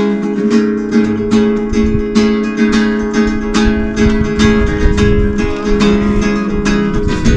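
Acoustic guitar strummed in a steady rhythm, about three strums a second, playing the chords of a song between sung lines.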